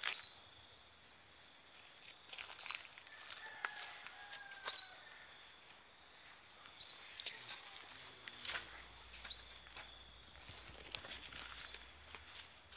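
Faint outdoor ambience: a bird repeats a short two-note chirp about every two seconds over a steady high-pitched whine.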